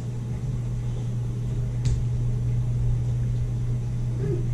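A steady low hum with a low rumble beneath it, and a faint click about two seconds in.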